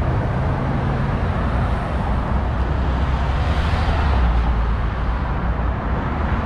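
Road traffic noise from cars and trucks passing on a wide multi-lane road: a steady rumble that swells about four seconds in as a vehicle goes by.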